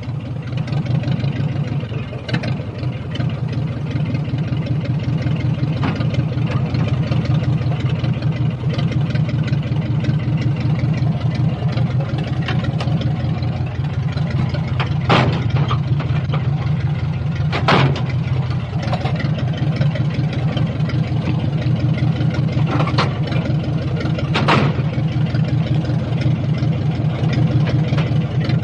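Old car engine idling steadily with a fast, even low chug. A few sharp clicks or pops stand out over it about halfway through and again later.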